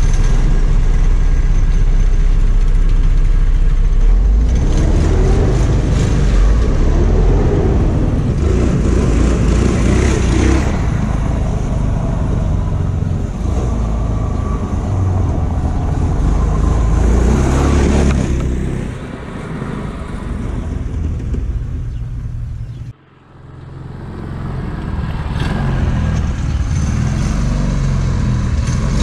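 Small single-cylinder gas engine of a Power Wheels go-kart conversion running with the throttle worked, revving up and down several times. The sound dips about two-thirds of the way through and cuts out sharply for a moment before picking up again.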